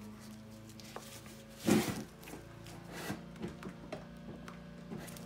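Hands pressing and shifting a plywood doubler plate on a glued wooden wing spar, giving light wooden knocks and rubs; the plate will not move because the Aerolite glue has already grabbed. One louder brief thump comes a little under two seconds in, followed by several small separate knocks.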